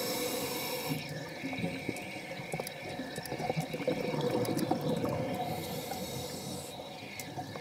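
Underwater sound picked up by a submerged camera: a steady murmur with scattered crackling clicks and a faint hum. A stretch of high hiss comes in the first second and again about five and a half seconds in.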